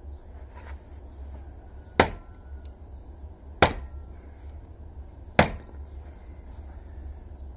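Axe splitting a log on a wooden chopping block: three sharp, loud chops, about a second and a half to two seconds apart.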